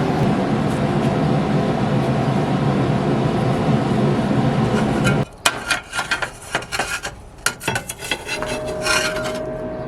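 A steady rushing noise stops abruptly about five seconds in, followed by a run of light metal clinks and taps. One ringing note lingers near the end.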